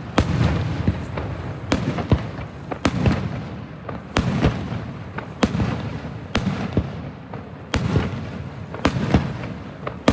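Aerial fireworks shells bursting one after another, a sharp bang about every second, with low rumbling echoes rolling on between them.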